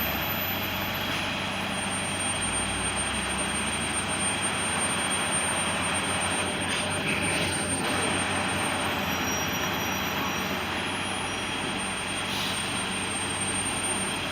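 Cat excavator's diesel engine running steadily, a constant mechanical drone. The owner notes that this engine's speed oscillates rapidly.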